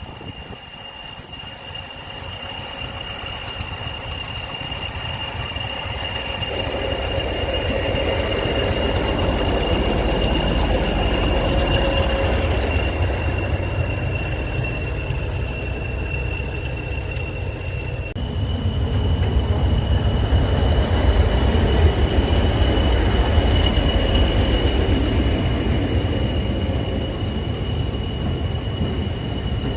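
A train running on the railway line: a low rumble of wheels and engine that builds over the first ten seconds, with a steady high-pitched squeal held over it. The sound shifts suddenly about eighteen seconds in.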